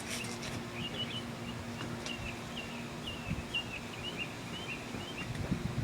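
Small birds chirping, a string of short, quick chirps repeated every half second or so, over a steady low hum.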